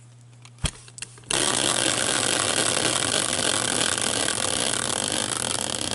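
Hand-spun prize wheel made from a caster wheel: a couple of clicks, then from about a second in a loud, fast, steady rattling whir as it spins, just starting to break into separate ticks near the end as it slows.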